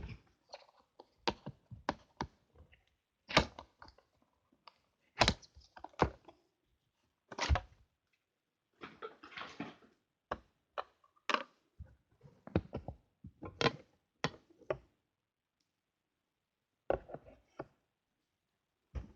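Handling a plastic makeup palette and its packaging: a run of sharp clicks and knocks, with a couple of seconds of rustling about nine seconds in, then a few more taps near the end.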